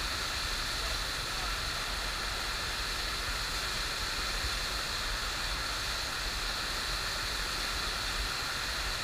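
Steady, even rush of water from a FlowRider standing-wave machine, its thin sheet of water pumped fast up the sloped riding surface.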